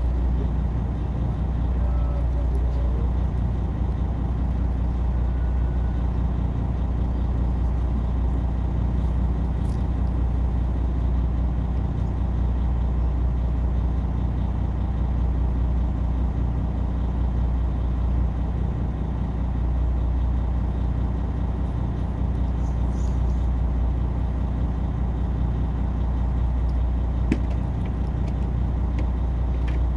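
Boat engine running steadily at a constant low speed, a deep unbroken hum.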